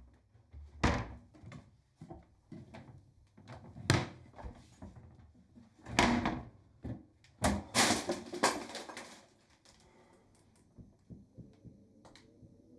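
Cupboard doors and drawers being opened and banged shut in a search, a string of separate knocks and clunks that thins out after about nine seconds.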